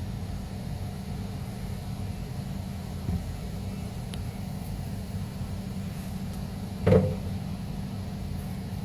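Steady low hum with a few faint plastic clicks, and one louder short knock about seven seconds in, as the locking lid of a plastic Tupperware microwave pressure cooker is opened.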